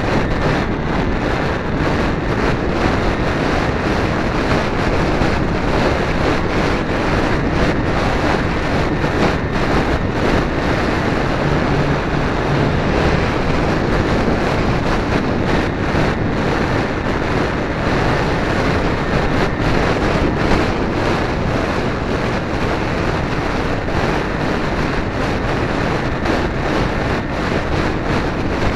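A loud, steady rush of wind on the microphone of a camera riding on an electric RC foam plane in flight, with the plane's motor and propeller mixed in.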